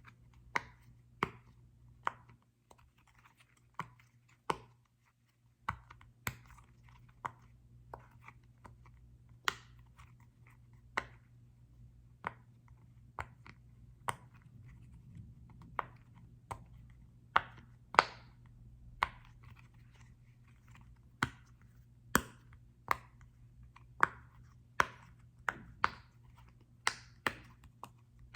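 Sharp, irregular taps and clicks on a small football-shaped object, about one a second with an occasional quick pair, over a faint steady low hum.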